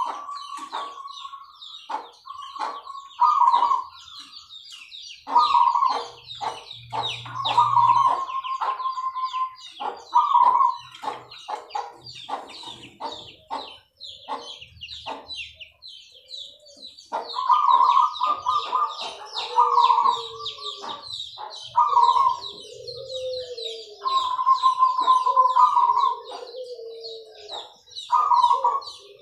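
Zebra doves (perkutut) cooing in repeated short trilled phrases, over continuous high chirping of small birds. In the second half a lower, falling call joins in.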